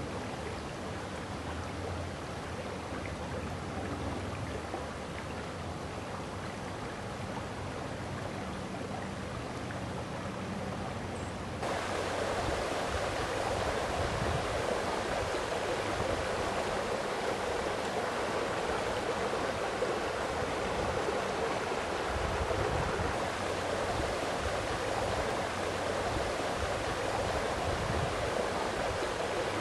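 Water of a stream running steadily, a continuous rushing. It becomes louder and brighter at a sudden change about twelve seconds in.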